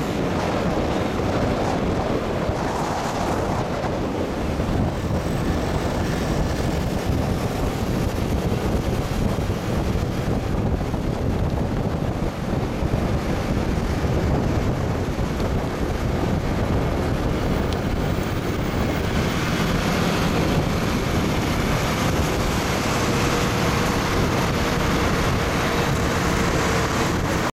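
Steady wind noise on the microphone and road noise from riding a motorcycle through traffic, with engine and traffic sound underneath.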